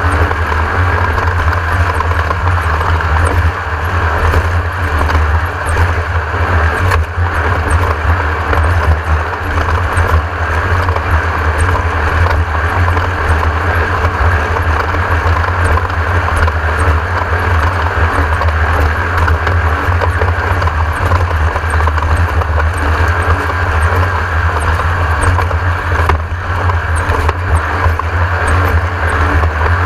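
Class 1600 off-road race car with its air-cooled Volkswagen 1600 cc engine running steadily, a loud continuous engine and drivetrain noise with no break.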